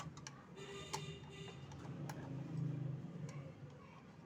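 A few light clicks and taps of small parts being handled and set in place on the UPS board, over a low steady hum.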